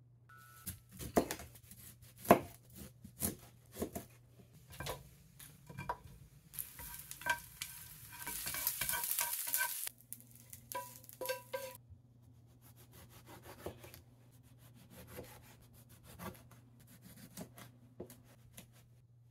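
Kitchen food-preparation sounds: scattered knocks and clicks of food and utensils being handled, with two sharp knocks in the first few seconds. A hiss runs for about three seconds in the middle and cuts off suddenly. A knife slices a tomato against a cutting board near the end.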